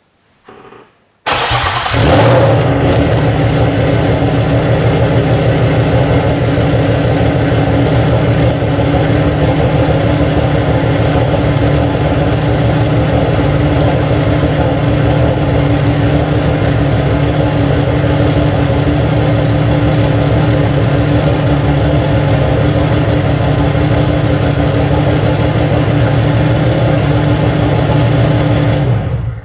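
Turbocharged BMW M50 inline-six engine cranks briefly and catches about a second in, then runs steadily until it stops near the end. It is starting and running on MS3X Megasquirt sequential injection and ignition now that the crank trigger wheel's missing tooth has been realigned with the cam signal, which had been too far from it and kept the engine from starting.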